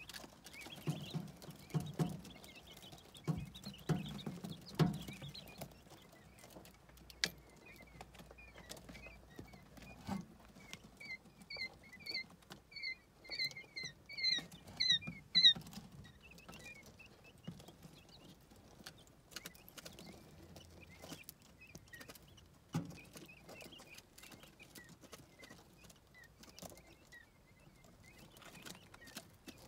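Eight-day-old quail chicks pecking and scratching in wood-chip bedding and at a plastic feeder, heard as scattered soft taps, clicks and thumps. In the middle comes a quick run of short, high, falling peeps, the loudest part, and a few fainter peeps follow later.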